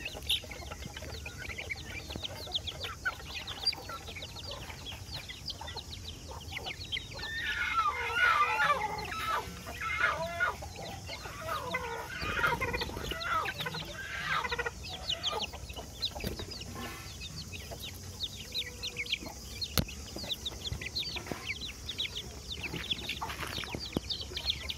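A flock of young Aseel and Erode chickens peeping and cheeping continuously as they feed, with louder, longer calls breaking in about a third of the way through and again around the middle.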